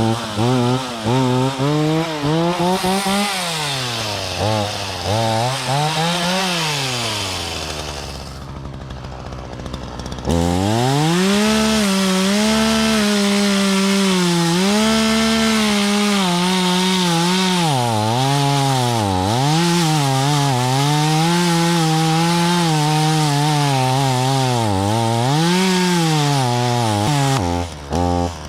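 Two-stroke chainsaw cutting a small tree: short revs rising and falling at first, a lower stretch around eight seconds in, then held at high revs for a long cut, the engine speed dipping and recovering again and again before dropping away near the end.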